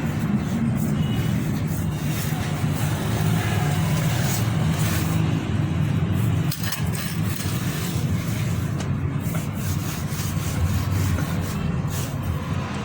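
Steady low rumble of a running vehicle engine, with scattered light clicks and knocks.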